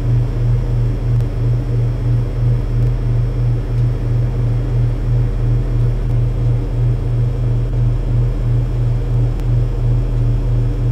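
Loud, low mechanical hum of building machinery, throbbing evenly about three to four times a second over a steady mains-like drone.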